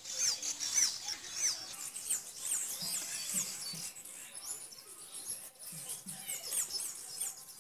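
Small birds chirping: many quick, high, sweeping chirps in clusters.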